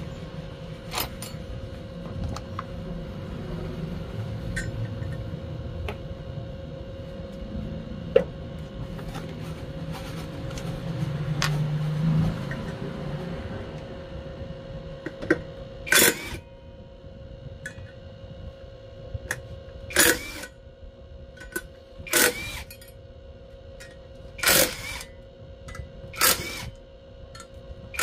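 Metal hand tools working on motorcycle wheel and sprocket-hub parts: scattered clicks and clinks, then a series of sharp clacks about every two seconds in the second half, over a steady hum.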